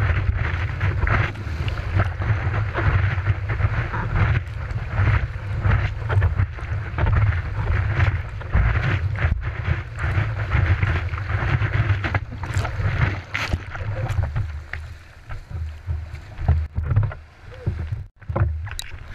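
Whitewater rushing and splashing over the nose of a surfing longboard, heard from a camera mounted on the board, with a heavy low rumble from water and wind buffeting. The rush thins out and gets quieter in the last few seconds as the ride ends.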